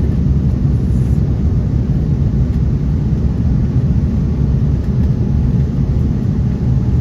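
Airliner cabin noise during the climb after takeoff: a steady, loud low rumble of the engines and rushing air.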